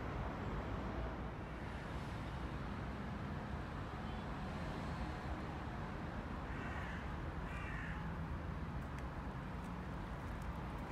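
A bird calls twice, about a second apart, over a steady low outdoor rumble.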